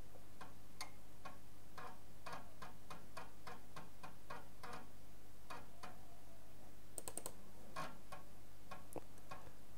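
Floppy drive reading a Deluxe Paint III disk, its head stepping in irregular clicks about twice a second over a steady low hum. About seven seconds in comes a quick cluster of clicks as the mouse is double-clicked.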